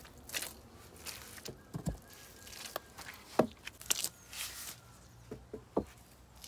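Footsteps and rustling on dry leaves and soil, with a few sharp wooden knocks and thuds as a peeled log is carried and laid down on a log wall. The loudest knocks come a little past halfway.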